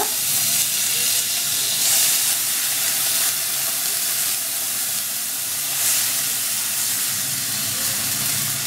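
Water poured into a hot kadai of oil-sautéed vegetables, hissing steadily as it turns to steam on the hot metal.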